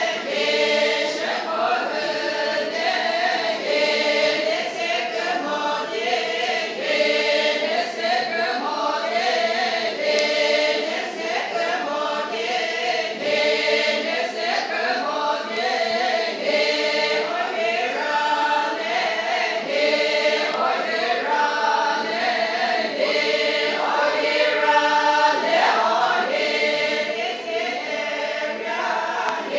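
A choir singing together, many voices holding notes and moving in steps through a song without a break.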